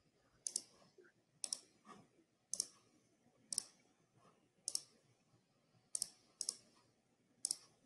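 Sharp clicks on a computer, roughly once a second, each a quick press-and-release double tick, with two close together near the end: repeated clicking to advance presentation slides that are not advancing.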